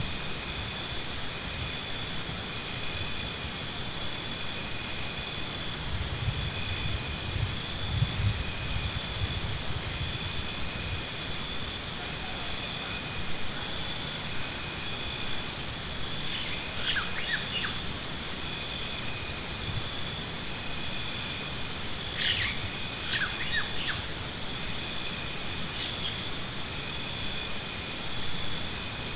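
Insects chirping: several steady high-pitched tones, with a loud, rapid pulsed trill that comes and goes every few seconds and lasts two to three seconds each time.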